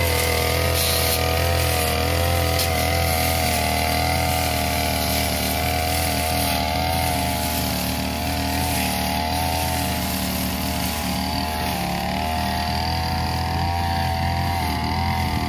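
The two-stroke engine of a 328 backpack brush cutter runs steadily at high speed, its pitch wavering slightly as the metal blade swings through long grass.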